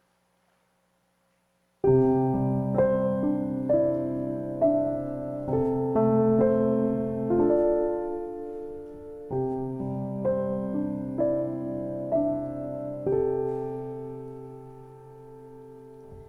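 Piano playing a slow, gentle introduction, starting about two seconds in: chords struck roughly once a second and left to ring, ending on a long chord that fades away.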